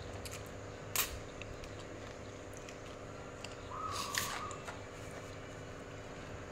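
Person eating rice noodles and cucumber salad by hand: quiet chewing and mouth sounds, with a sharp click about a second in and a short noisy burst around four seconds. A steady electric-fan hum runs underneath.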